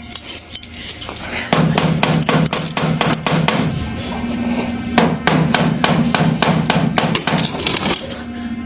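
Loud, rapid knocking on a house's front door, several blows a second.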